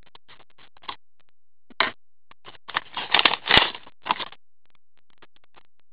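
Scissors cutting a paper slip and the slip being handled: a few short paper scrapes and rustles, then a denser run of rustling about three to four seconds in with one sharp knock.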